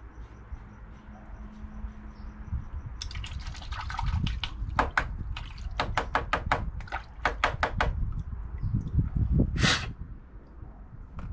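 Water dripping and splashing while the filter of a Rheem tankless water heater is cleaned. In the middle comes a run of quick, regular clicks, and near the end a short hiss.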